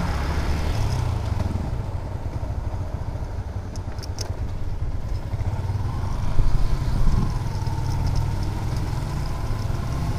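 Motorcycle running steadily under way, heard from on board as a constant low engine and road rumble, briefly louder about six seconds in.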